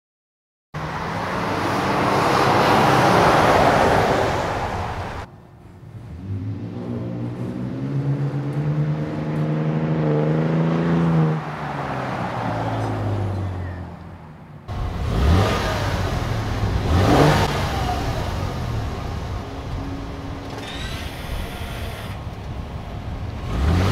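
Toyota Tundra's twin-turbo V6 exhaust in a run of short stock-versus-Carven cat-back comparison clips. First the truck swells past, then the engine note rises, holds and falls away. Near the end come several quick rising revs.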